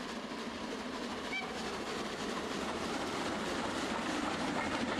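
00 gauge model steam locomotive and coaches running along the track, the wheels clicking over the rail joints in a steady clatter that grows slowly louder as the train approaches.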